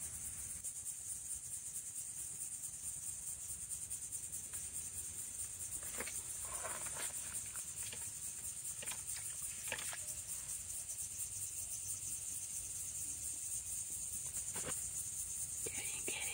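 Steady high-pitched trilling of insects, with a few faint clicks now and then.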